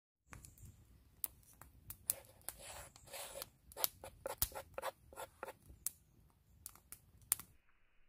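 Wooden spoon scraping and swirling through flour on a wooden board, with sharp crackles and pops from a wood fire. The sound turns quieter and duller near the end.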